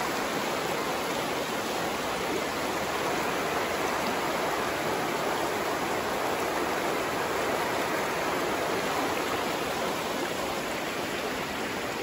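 Shallow, fast-flowing river rushing over a rocky bed in whitewater riffles: a steady, unbroken rush of water.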